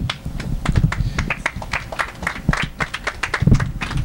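Small audience applauding: many quick, irregular, separately audible hand claps.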